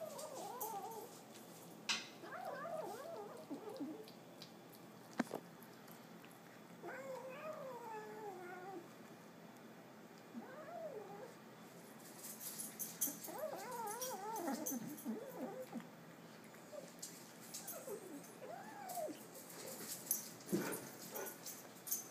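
A kitten growling over its food as it eats: repeated wavering growls in bouts a second or two long, some rising and falling in pitch like a low yowl, with a few sharp knocks in between.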